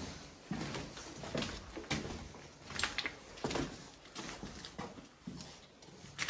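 Footsteps on a rubble-strewn concrete floor, uneven scuffs and knocks about two a second, with one sharper knock at the very end.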